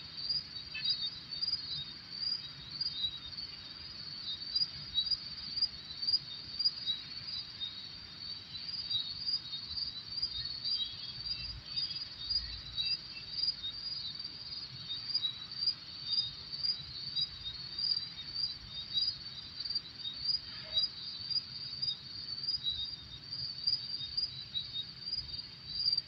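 Crickets chirping steadily, short high-pitched pulses repeating a few times a second, with a few faint bird calls now and then.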